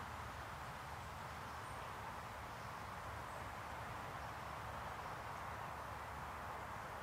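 Steady woodland ambience: an even hiss with a low rumble beneath it, and a few faint, high bird chirps.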